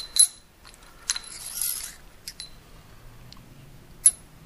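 Aluminium rods and a digital caliper clinking on a granite surface plate: a few sharp metallic taps that ring briefly, with a short scraping slide about a second in.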